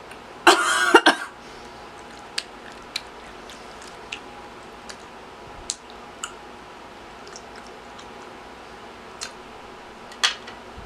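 A short loud cough about half a second in, followed by scattered wet mouth clicks and smacks from chewing honeycomb, with a faint steady hum underneath.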